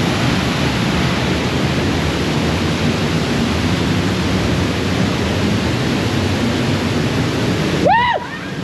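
Steady rushing of a rain-swollen river and waterfall, a dense even noise. Near the end the rushing drops away and a short high call rises and falls once.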